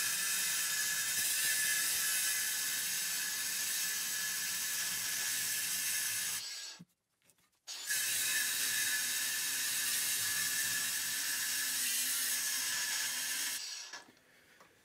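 Battery-powered angle grinder cutting into the steel shell of a refrigerator compressor, running with a steady whine. It stops about six and a half seconds in, starts again about a second later, and stops near the end.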